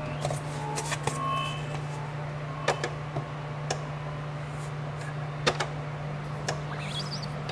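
Light taps and clicks of photographic paper being handled and laid on an enlarging easel, over a steady low hum.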